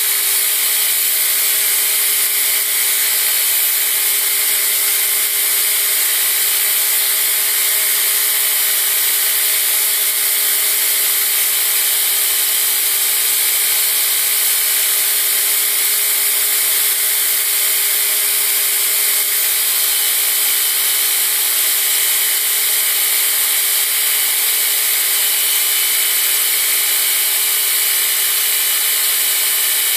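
Belt grinder running steadily, its abrasive belt grinding the bevels on a steel push-dagger blade held in a clamp jig against the platen.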